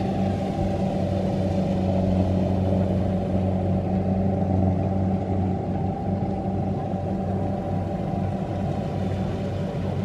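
Heavy farm machine's engine running steadily: a low, even hum with a steady whine above it.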